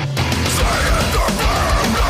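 Heavy metal song playing, with distorted guitars, bass and drums; a brief break right at the start, then the full band comes back in.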